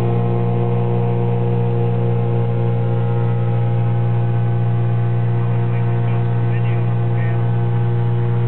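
Searey amphibian's engine running steadily in cruise flight, heard inside the cockpit as a constant low tone with unchanging overtones.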